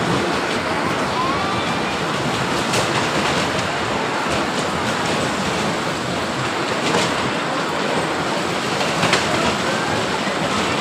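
Children's amusement ride running: a steady mechanical rumble with a few light clicks.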